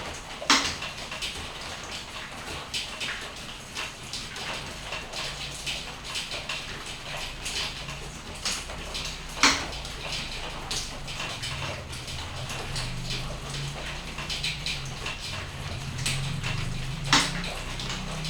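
Steady rain, with heavy drops knocking on a hard surface; three louder knocks come about half a second in, near the middle and near the end. A low rumble builds in the second half.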